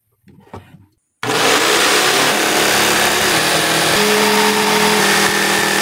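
Electric jigsaw starting about a second in and cutting through plywood, running loud and steady with small shifts in motor pitch as the blade works.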